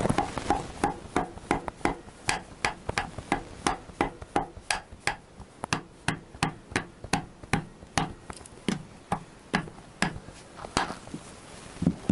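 A mallet (the "big fiber hammer") taps repeatedly on a Honda CBR1000F engine cover that won't come off, at about three knocks a second. The tapping stops near the end.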